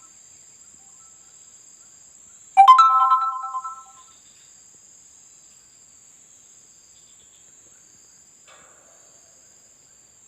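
An electronic phone ringtone chime plays once about two and a half seconds in: a quick rising run of notes that holds on three tones and fades away over about a second and a half. A faint, steady, high-pitched whine continues underneath.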